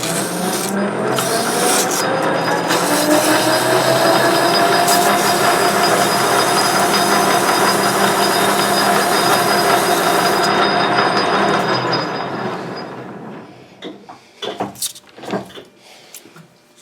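Metal lathe running up to speed, its pitch rising over the first few seconds and then holding steady while the freshly cut lead-screw thread spins for cleanup of its burrs. The lathe winds down near the end, followed by a few sharp clicks.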